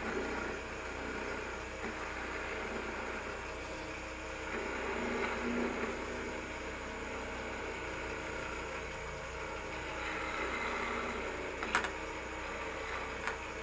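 Oneway wood lathe running while a gouge takes light cuts across the end of a spinning green-wood limb held only in the chuck; with no tailstock support the work vibrates. Two sharp ticks near the end.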